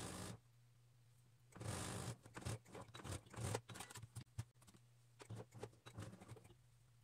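Flannel fabric rustling and sliding as it is gathered and fed at a sewing machine, in several short bursts with scattered clicks.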